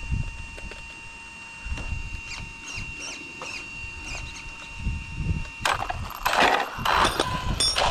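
Wind buffeting the microphone outdoors, with small birds chirping in short falling notes. Near the end, a couple of seconds of loud rushing noise.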